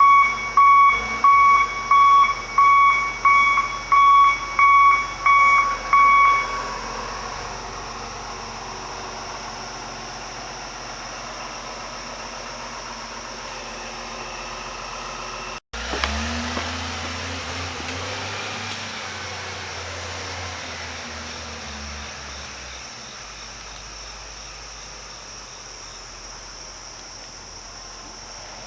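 An electronic beeper sounding one high tone about ten times in quick succession, then stopping. After that comes steady background noise, with a low hum following a break about two-thirds of the way in.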